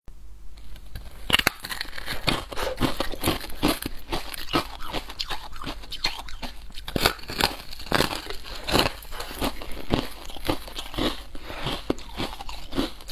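Close crisp crunching as a person bites and chews a brittle white disc-shaped snack: many sharp, irregular crunches starting about a second in.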